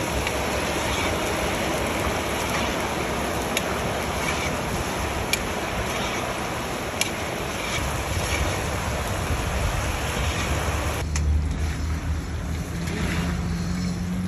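Raw banana slices deep-frying in a wide kadhai of hot oil, sizzling hard just after salt water has been poured in, with a few sharp clicks of the metal stirring rod against the pan. About eleven seconds in the sizzle turns quieter and a low steady hum comes up.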